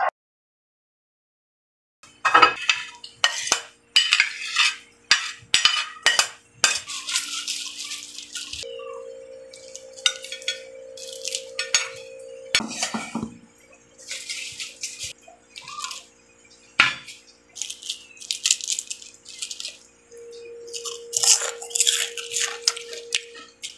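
A plate and utensils being handled while food is arranged on it: short scrapes and clinks against the plate, starting about two seconds in and repeating irregularly, over faint steady tones.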